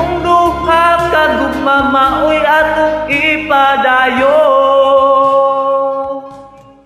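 Karaoke backing track with a man singing along, ending on long held notes and fading out near the end.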